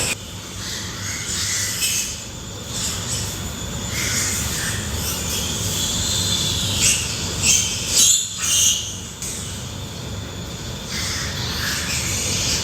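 Pigs squealing in a pen over a steady low background noise, with a cluster of loud squeals about seven to nine seconds in.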